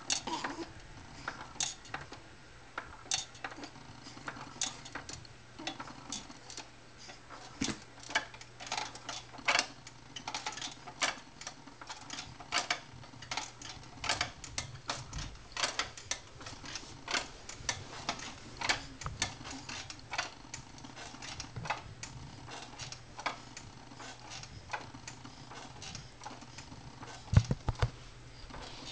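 Motorized baby swing ticking steadily as it rocks, about one to two clicks a second over a faint motor hum. A louder thump comes near the end.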